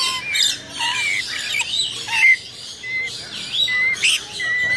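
Rainbow lorikeets calling: a quick run of short chirps and gliding notes, with a few brief steady whistles in the second half.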